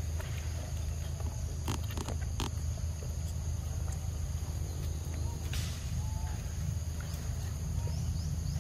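Long-tailed macaque chewing and smacking on ripe mango: a few short wet clicks about two seconds in and again midway, over a steady low rumble.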